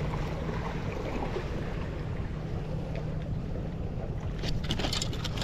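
Steady low rumble of wind on the microphone and ocean surf. A quick run of sharp rustling clicks comes near the end.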